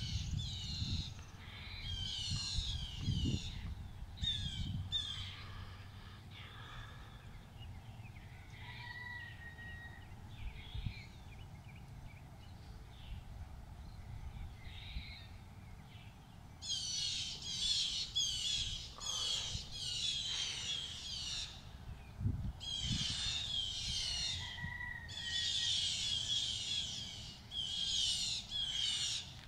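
Birds calling outdoors at dawn: harsh, repeated high-pitched calls in bursts, sparse at first and much busier through the second half, with a short thin whistle heard twice.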